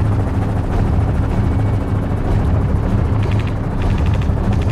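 Small helicopter's engine and rotor running steadily at full flight, heard from on board in the open doorway with a deep rotor beat. A fast, even rattle comes twice near the end.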